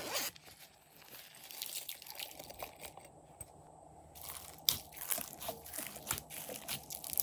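Fingers pressing and kneading glossy slime covered in sequins and glitter confetti, giving crunchy, crinkly crackles with many small clicks, busier and louder in the second half. A short louder noise comes right at the start.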